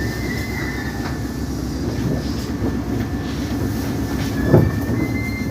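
Keisei 3600 series electric train running: a steady rumble of wheels on rail with a thin, high wheel squeal that comes and goes, and a single sharp knock about four and a half seconds in.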